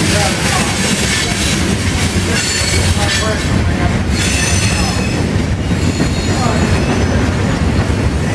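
Freight train cars rolling past on the near track: a loud, steady rumble of wheels on rail, with high-pitched wheel squeal around three to four seconds in.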